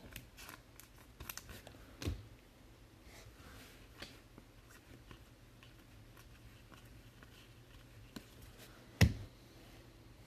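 Soft clicks and rustles of trading cards being handled: a card slid into a plastic sleeve and a stack thumbed through by hand. A knock about two seconds in, and a sharper, louder one about nine seconds in as a stack of cards is set down on the table.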